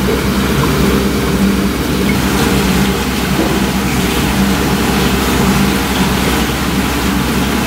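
Steady low mechanical hum, like a motor or engine running, over a noisy background with no distinct events.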